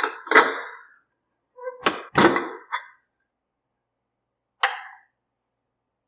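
Kitchen utensils clanking: a handful of sharp knocks and clinks with a short ring in the first three seconds, then one more about four and a half seconds in.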